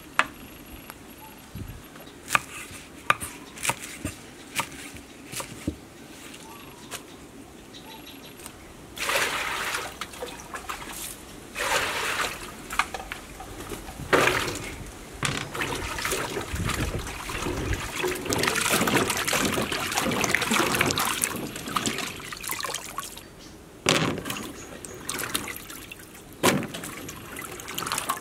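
Vegetables being washed by hand in a steel bowl of water: sloshing and splashing, with water running through a plastic colander. Before the water starts, about nine seconds in, there are only scattered sharp taps and clicks.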